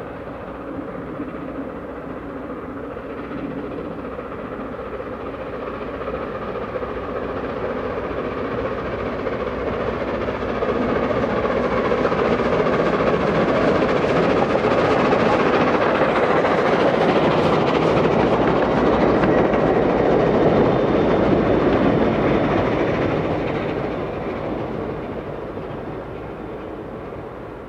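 Gresley A4 Pacific steam locomotive 60009, a three-cylinder engine, passing under steam with its support coach: the exhaust and running sound build up, are loudest for about ten seconds as it goes by, then fade away.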